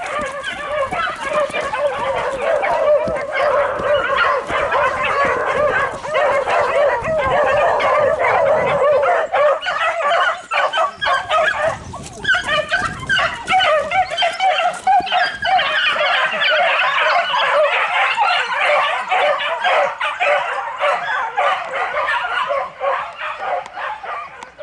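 A pack of female beagles baying together, many overlapping voices with hardly a break and a short lull about halfway through: hounds holding a wild boar at bay.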